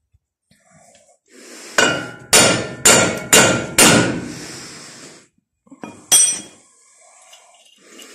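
Hammer striking metal with a ringing clang: five quick blows about two a second, then one more a couple of seconds later.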